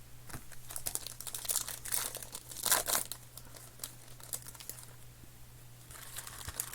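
Foil trading-card pack wrappers crinkling and tearing as packs are ripped open and handled, a run of short crackles that is loudest around the middle, over a faint steady low hum.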